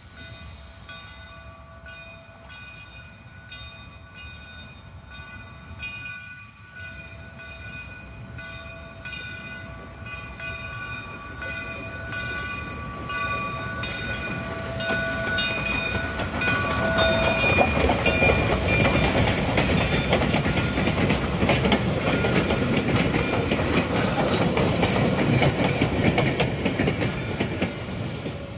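Southern 401, a 2-8-0 steam locomotive, approaching and passing with its bell ringing in steady, even strokes. The rumble of its exhaust and running gear grows louder and is loudest from about two-thirds of the way in as it goes by.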